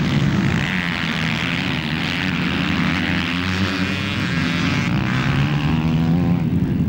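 Motocross motorcycle engines running at a steady, low throttle, making a continuous engine drone with no clear revs.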